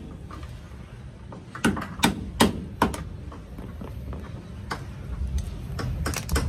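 Four sharp hammer strikes on metal about 0.4 s apart, followed by lighter taps and clicks. This is an old door hinge bushing being knocked out of a Nissan Urvan door hinge.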